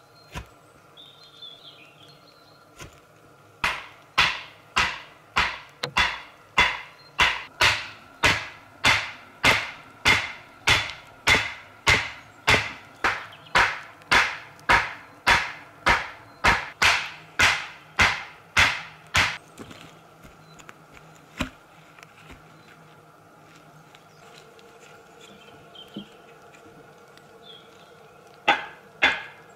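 Wooden stake being driven into the ground with blows from the back of an axe: a steady run of sharp wooden knocks at about two a second that goes on for some fifteen seconds, stops, then starts again near the end.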